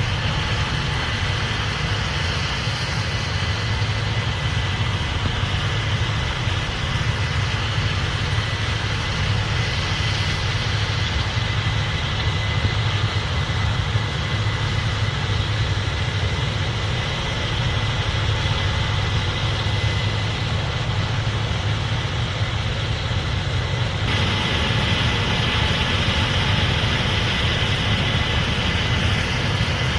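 Case IH 8250 Axial-Flow combine running steadily with a constant machine drone and a faint steady whine. The sound changes abruptly about 24 seconds in and turns brighter.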